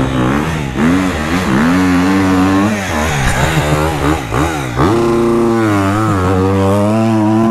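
Dirt bike engines revving as they ride, the pitch climbing and falling repeatedly with throttle and gear changes, then held steady at a higher pitch for the last couple of seconds.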